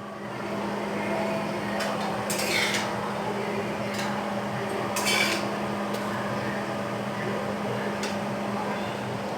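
A few light clinks of a utensil against dishes and a pan, the clearest about two and a half and five seconds in, over a steady low hum.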